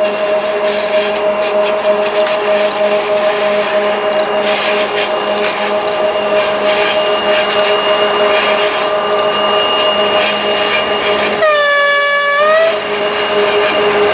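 Ludmilla-type diesel locomotive (BDZ class 07, V16 diesel) pulling a freight train past, its engine running with a steady drone. Late on it sounds its horn once for about a second, the pitch bending up as it cuts off.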